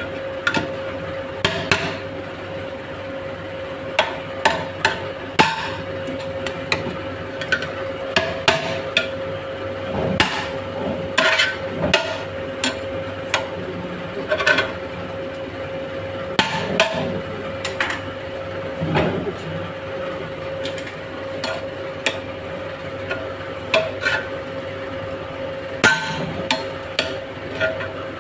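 Irregular knocks and clanks of kitchen utensils, a few every second or two, over a steady hum.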